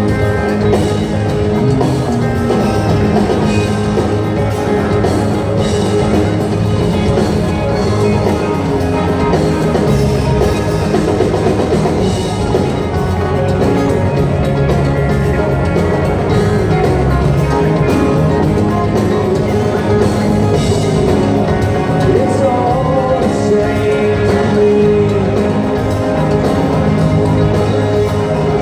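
Live rock band playing: electric guitars and drum kit.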